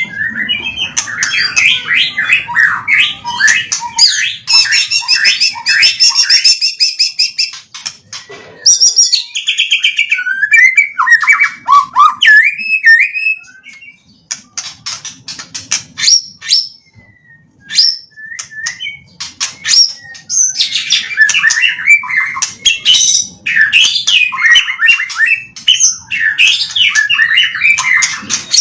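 White-rumped shama (murai batu) singing a loud, varied song of rapid whistles, trills and sharp clicks, strung together from the phrases it has learned from other birds. It thins to short scattered notes and clicks midway, then goes back to dense song.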